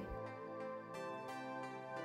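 Quiet background music with held notes.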